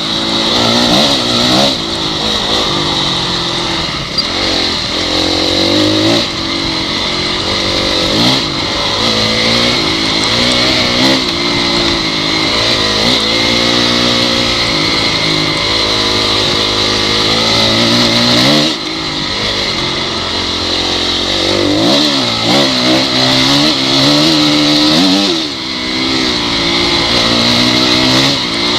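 Honda CRF dirt bike's single-cylinder four-stroke engine under way, its pitch rising and falling again and again as the throttle is worked, with short lulls where the throttle is rolled off.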